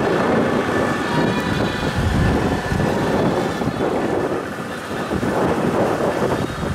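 Motorcycle riding along a street: the engine running steadily under a loud rush of wind buffeting the microphone.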